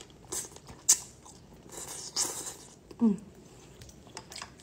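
A person slurping and chewing thick udon noodles, with a sharp click about a second in and a short falling hum about three seconds in.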